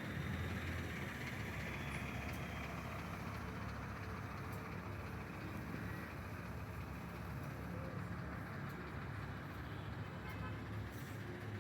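A large vehicle's engine running with a steady low rumble.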